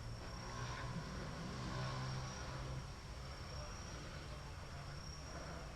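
A distant engine drones, easing off about two and a half seconds in, over a faint steady high-pitched whine.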